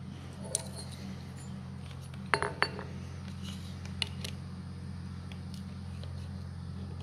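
A steel dial caliper and a steel driveshaft yoke flange clink and tap as they are handled and set against each other. The loudest is a quick group of three or four ringing metal clicks about two and a half seconds in, with single clicks before and after. A steady low hum runs underneath.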